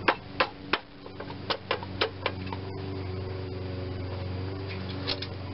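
Sharp knocks and clicks from the engine's sheet-metal fan shroud being tugged and worked by hand, about three a second through the first half, while it is still held fast by a hidden bolt at the bottom. After that comes a steady low hum.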